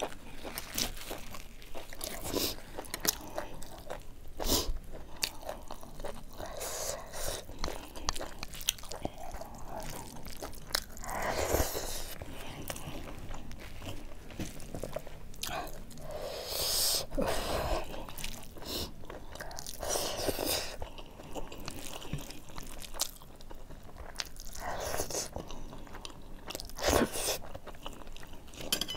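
Close-miked chewing of rice and buffalo-meat curry, with frequent sharp, wet mouth clicks and smacks and a few louder, longer bites.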